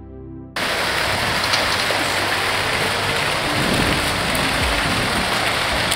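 The tail of a music cue fades out, and about half a second in a steady rush of fountain water splashing into a pool cuts in abruptly.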